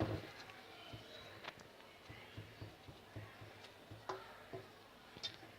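Quiet room with a few faint, light clicks and taps scattered through it, the kind made by small handling noises.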